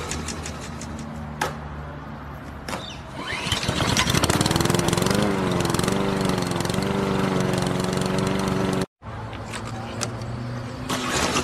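Pull-start lawn mower sound: a few quick rasps of the starter cord, then the engine catches about three seconds in and runs steadily. It cuts off suddenly near the end, and a low hum follows.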